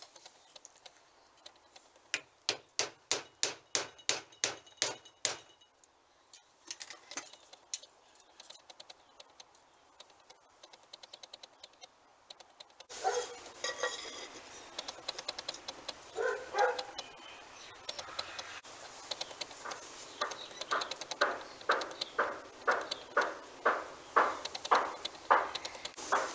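A hammer tapping a punch against a bench grinder's motor housing during disassembly: a quick, even run of about a dozen light metallic strikes, then scattered clinks of parts being handled. Later a second, slower run of knocks, about two a second.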